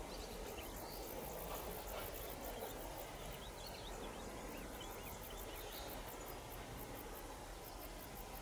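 Outdoor ambience dominated by insects trilling, a rapid, evenly pulsing high-pitched chirr, with a few short bird chirps a few seconds in, over a faint low background rumble.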